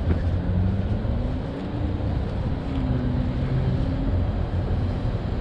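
Car driving: a steady low road rumble with the engine note rising in pitch, twice, as the car speeds up.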